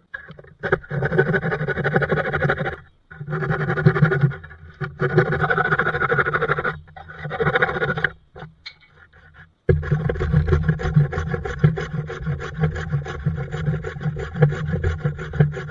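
Hand saw ripping a reclaimed pallet-wood board lengthwise, rasping cuts in several stretches broken by sudden short gaps, then one longer unbroken run from about ten seconds in.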